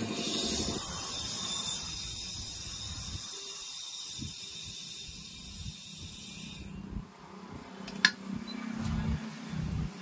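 Compressed air hissing steadily from a shop air line into a motorcycle's repaired rear tubeless tyre as it is inflated. The hiss cuts off about seven seconds in, and a single sharp click follows about a second later.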